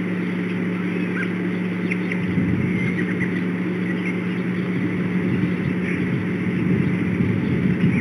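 Steady low outdoor drone with a hum, turning rougher and a little louder about two seconds in, with faint short chirps of small birds scattered through it.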